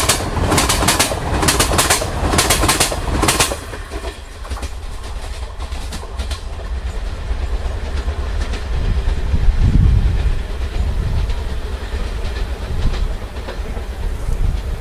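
Passenger coaches passing close by, the wheels clattering over the rail joints in quick repeated clacks. About three and a half seconds in the clatter stops abruptly and only a low rumble remains, swelling slightly near the middle.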